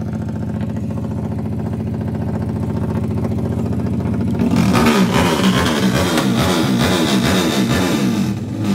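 Four-stroke drag-racing motorcycle engine running steadily, then revved hard in quick repeated blips from about halfway.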